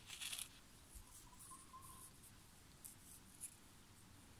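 Near silence: room tone, with a short rustle right at the start and a few faint ticks.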